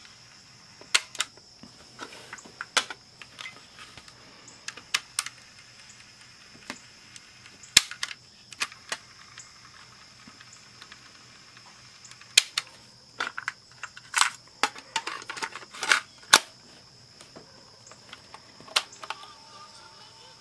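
Sharp plastic clicks and clacks from a Panasonic RQ-V51 portable cassette player being handled: its transport keys pressed and released and its cassette door snapped shut. The clicks come singly and in pairs, with a dense run of them about twelve to seventeen seconds in. A faint steady high whine runs underneath.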